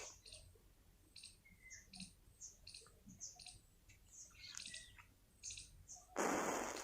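Faint scattered high chirps and ticks, then about six seconds in a brief loud hiss from a burst of match heads flaring as the matchstick chain catches.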